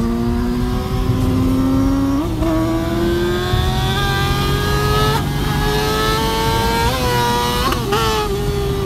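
Dodge Challenger Scat Pack's 6.4-litre (392) HEMI V8 accelerating, heard from inside the cabin, its revs climbing steadily with a few brief hitches along the way.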